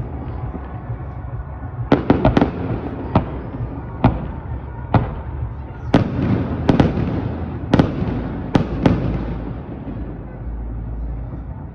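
Aerial firework shells bursting: about a dozen sharp bangs in quick clusters, each followed by a rolling echo. The bangs die away to a low rumble near the end.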